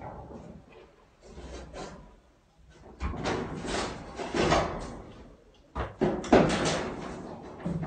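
Irregular bangs, knocks and scraping from demolition work on the building, quiet for a moment about two seconds in, with the loudest bangs near six seconds.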